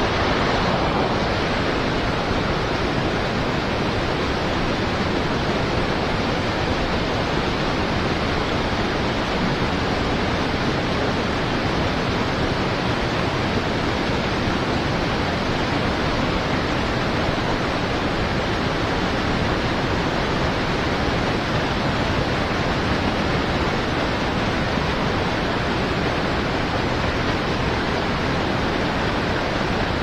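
Steady rush of flowing river current, an even wash of water noise that holds at one level throughout.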